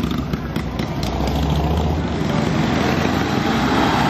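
Engine of a trackless tourist road train running as it draws near: a steady low engine note that grows gradually louder, with a few faint clicks in the first second.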